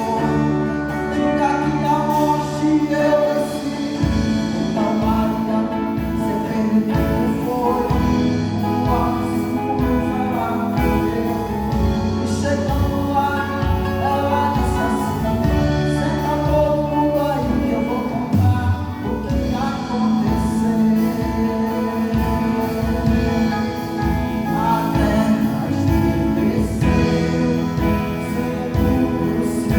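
Gospel band playing and singing a Christian praise song, with voices over bass and a steady drum beat that comes in about four seconds in.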